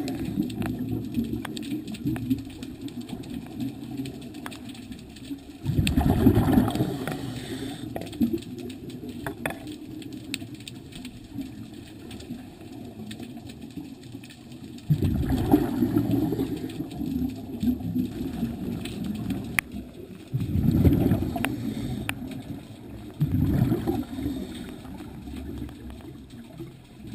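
Scuba diver breathing out through a regulator underwater: bubbles burst out four times, each lasting a second or two, over a steady low hiss of water against the camera housing. A few faint clicks sound between the breaths.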